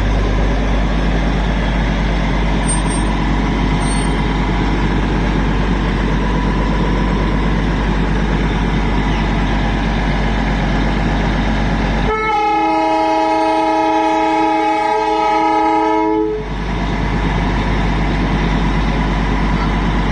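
Toy train running with a steady, loud rumble, then its horn sounds one long, steady blast for about four seconds, a little past the middle.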